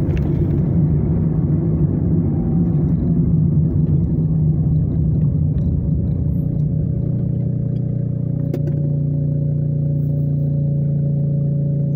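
Car noise from the driving car: a low road and engine rumble as it rolls and slows, settling about two-thirds of the way through into a steady idling hum once it stops at the light. A single click sounds just as it settles.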